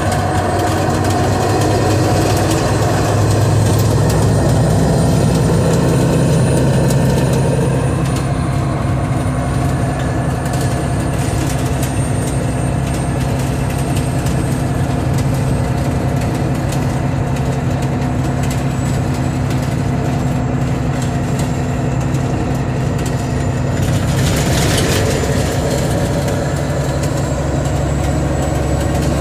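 Mack R-model truck's diesel engine running steadily while driving, heard from inside the cab, with clicking and rattling throughout.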